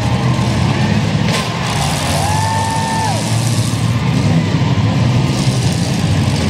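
Several demolition-derby minivan engines running and revving in a steady low rumble, with one sharp crash of vans colliding a little over a second in. A brief steady tone sounds from about two to three seconds in.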